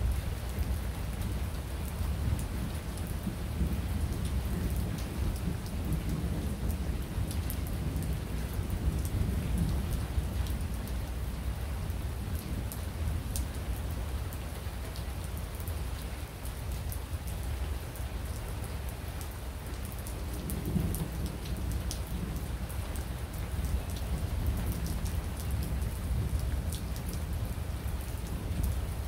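Steady rain falling, with many small drop ticks, under a low rolling thunder rumble that swells and fades several times.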